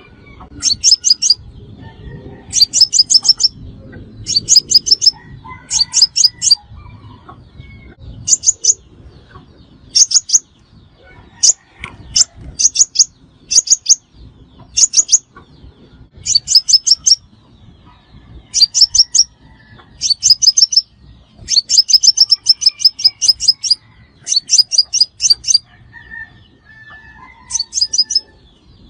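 Crimson sunbird calling: short rapid bursts of high, sharp chip notes, repeated every second or two.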